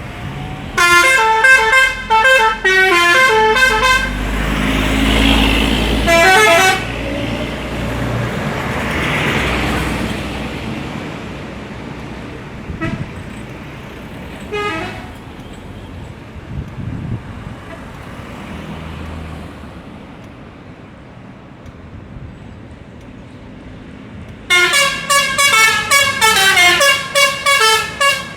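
Bus telolet horn: a set of horns playing a quick tune of stepping notes, sounded about a second in, briefly again around six seconds in, and for the last four seconds. In between a large vehicle drives past.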